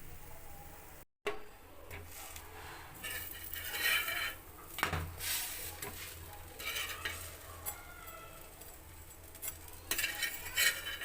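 A metal utensil scraping and clinking against a pan in irregular bursts, with food sizzling as it fries. The sound drops out completely for a moment about a second in.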